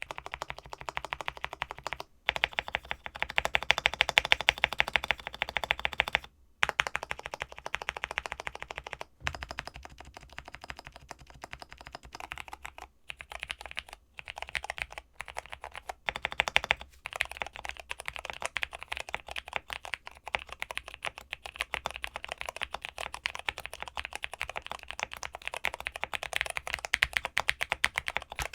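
Steady, fast typing on a Zuoya GMK67 mechanical keyboard fitted with Cherry MX Purple switches and Cherry profile keycaps, with two layers of tape on the PCB. The keystrokes come in quick runs broken by a few brief pauses.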